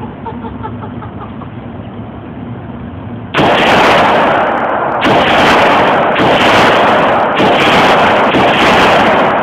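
AR-15 rifle firing rapidly, starting suddenly about three seconds in: loud, near-continuous noise with short breaks about once a second.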